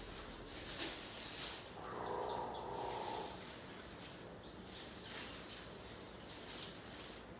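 Small birds chirping in short, high, falling notes, with dry rustling of leafy browse and hay as an African elephant calf feeds with her trunk. A brief muffled murmur about two seconds in.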